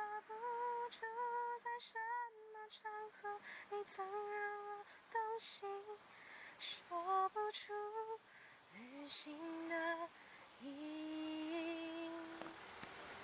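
A woman's voice singing a slow, unaccompanied melody, with held notes that step up and down in pitch and a few longer notes sliding up into place near the end.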